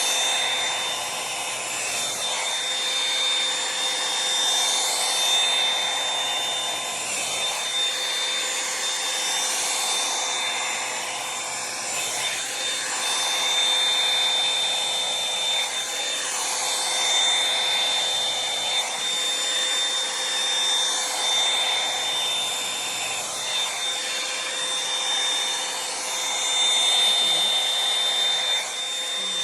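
Revlon One-Step hot-air brush dryer running steadily, a rush of air with a high motor whine. The airflow swells and fades every couple of seconds as the brush is worked through the hair.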